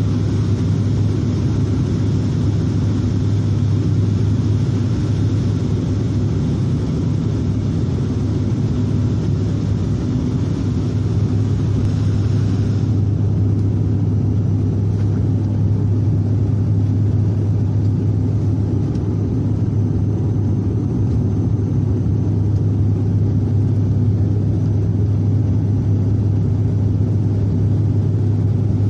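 Cabin noise inside a Bombardier Dash 8 Q400 turboprop on final approach with the landing gear down: a steady low propeller drone under the rush of engine and airflow. About halfway through, the higher part of the rush drops off suddenly while the drone carries on.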